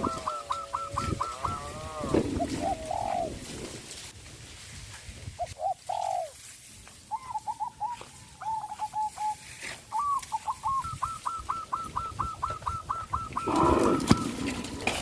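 Wild birds calling: a rapid run of repeated short notes, about four or five a second, at the start and again from about ten seconds in, with shorter separate calls in between. Near the end there is a louder stretch of crunching and rustling from the cattle eating bamboo.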